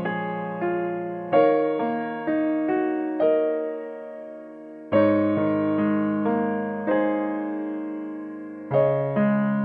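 Soft background piano music: slow, gently struck notes and chords that ring and fade, with fresh chords coming in about every second.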